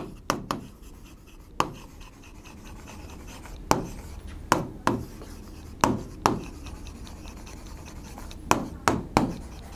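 A pen writing on a board: a dozen or so short, sharp taps and scrapes at uneven intervals as words are written out by hand.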